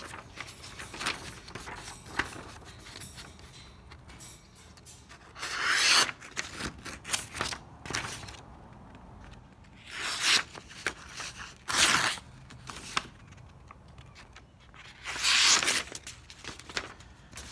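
Schrade SCHF3N survival knife slicing through a sheet of paper: four louder rasping cuts spread through, with softer paper rustling between. The blade is fairly sharp but not razor sharp out of the box.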